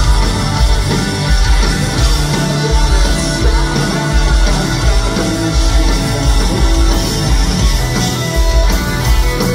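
Live punk rock band playing loud: distorted electric guitar, bass and drums on a steady beat, with the lead singer singing over it.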